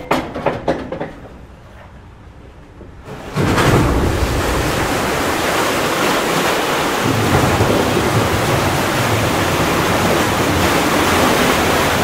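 A few faint clicks, then a loud, steady, rain-like rushing noise that sets in abruptly about three seconds in and runs on with a low rumble underneath.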